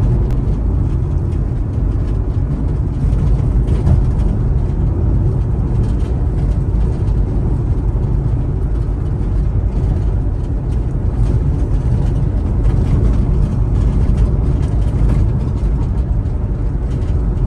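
Car driving along at speed: a steady low rumble of tyres on the road and engine, with no change in pace.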